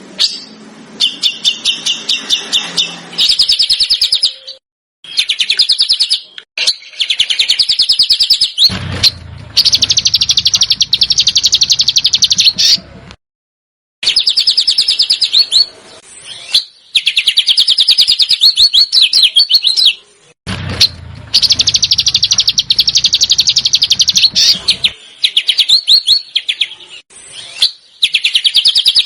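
A small songbird giving fast, harsh rattling trills: the 'besetan' call used as masteran to train competition songbirds. The rattles come in runs of several seconds with abrupt cut-offs between them.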